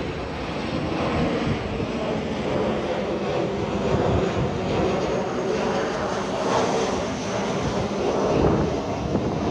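Jet engines of a Boeing 737 airliner flying overhead on landing approach: a steady rumbling and hissing noise.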